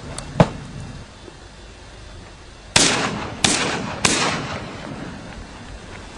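Three shotgun shots in quick succession, a little over half a second apart, each followed by a long fading echo, with a single sharp crack just under half a second in.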